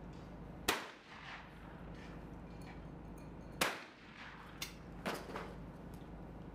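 Shotgun fired twice at clay targets, two sharp shots about three seconds apart. Two lighter clicks follow about a second after the second shot.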